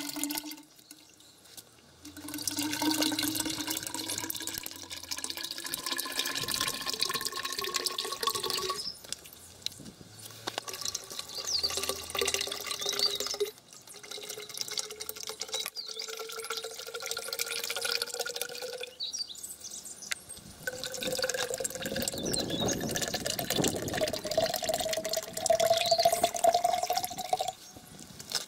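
Cooking oil pouring from a plastic bottle into a tall square quench tank, a splashing gurgle with a ringing tone that rises steadily in pitch as the tank fills. It comes in several pours with short breaks between them.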